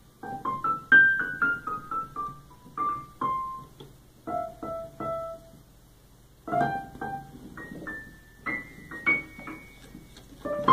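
Digital piano keys pressed in short, irregular runs of single notes by a person's hand and a kitten pawing the keyboard, with a couple of short pauses and a busier cluster of notes near the end.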